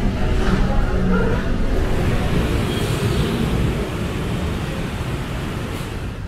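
A motor vehicle running, with a steady engine and road rumble that gets a little quieter in the second half.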